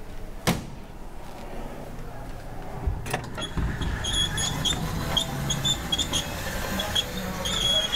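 A door latch clicks and a door is pushed open; after that the sound of the space beyond grows louder, a steady hubbub with short high tones scattered through it.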